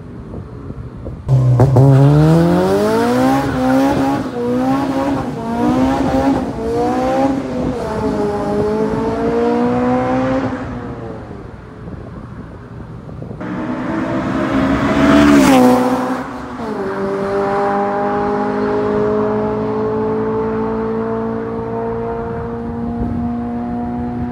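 Honda Civic Si's K20 2.0-litre four-cylinder through a Rev9 full exhaust with Skunk2 headers and a test pipe. It comes in suddenly about a second in and revs up hard, its pitch climbing and wavering, then fades. It builds again to its loudest around the middle, drops in pitch, and settles into a steady cruising drone.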